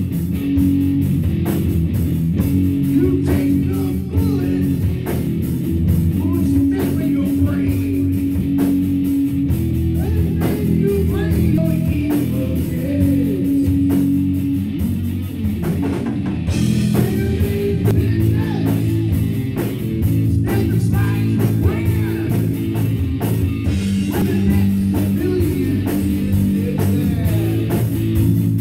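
Rock music played by a band, with guitar over a steady drum-kit beat.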